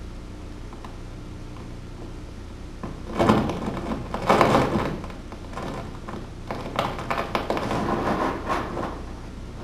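Broken glass crunching and grinding under a man's bare feet as he shifts his weight on a pile of shards, in two bouts: one starting about three seconds in, a second starting about two seconds after it, ending near the end.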